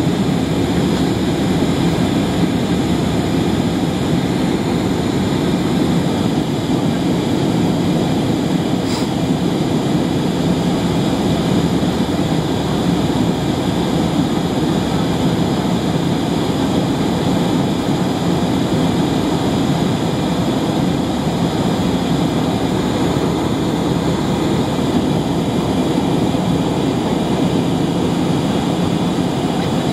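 Steady roar of airliner cabin noise from a window seat during the climb after takeoff, engine and airflow noise with no change in level, and a faint click about nine seconds in.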